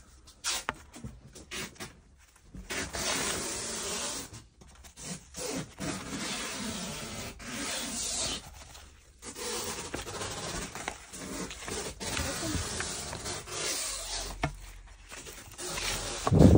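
Paper sleeves of old 78 rpm gramophone records rustling and scraping as the records are slid in and out and leafed through by hand, with a louder low thump at the very end.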